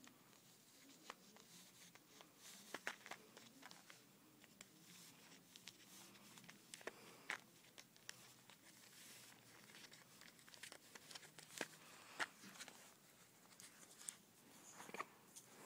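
Faint, irregular small clicks and crinkles of a Pomeranian nosing at dry kibble on a paper plate.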